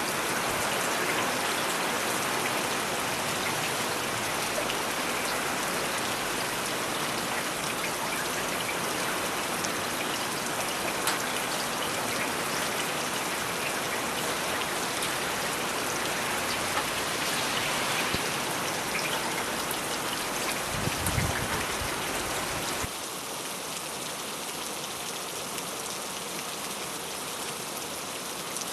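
Steady rain falling on a wet city street, an even hiss with scattered drop taps. A brief low rumble comes in about three-quarters of the way through, and just after it the sound abruptly drops to a quieter, thinner rain.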